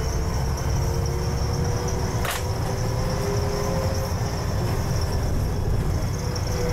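Double-decker bus heard from the upper deck while driving: a steady low engine and road rumble with a faint steady whine over it. A single sharp click comes about two seconds in.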